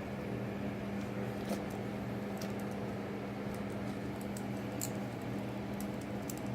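A hex wrench driving a set screw into a mini-lathe tailstock, heard as a handful of faint, scattered metal clicks over a steady low hum.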